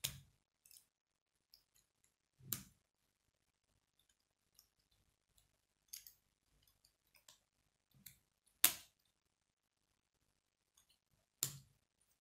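K'nex plastic rods and connectors being snapped together by hand: about six sharp plastic clicks at irregular intervals, the loudest about two-thirds of the way in, with faint small ticks of pieces handled between them.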